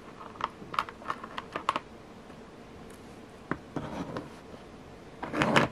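Beads and metal toggle clasp of a beaded bracelet clicking lightly against each other as it is handled and laid down: a quick run of small clicks in the first two seconds, a single click later on, then a louder short rustle near the end.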